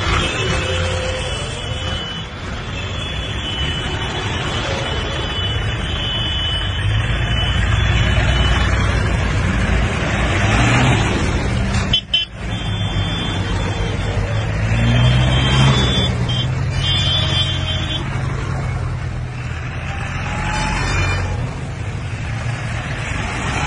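Many vehicle horns honking over the steady rumble of running engines and traffic, as a protest. The horns come and go in long overlapping blasts.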